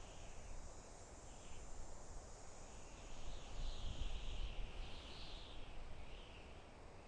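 Soft wind blowing through a forest, rising and falling in gentle gusts, with a steady high insect drone behind it.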